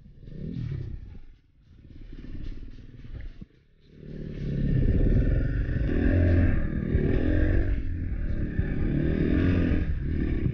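KTM 500 EXC-F's single-cylinder four-stroke engine running under a riding load on a dirt trail, revs rising and falling with the throttle. The first few seconds are quieter and broken by two brief drops; from about four seconds in it is loud and steady.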